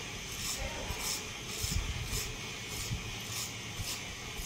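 Hair being cut: a steady hiss with a short crisp stroke about twice a second.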